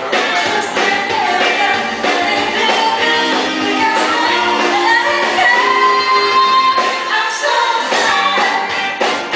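Live band playing a song with a woman singing lead into a microphone over drums and percussion, her held notes ringing out about halfway through. The sound is thin in the bass.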